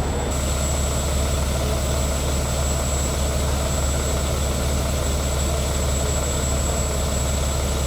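Loud, steady engine drone, deep and unchanging, with a thin high whine over it.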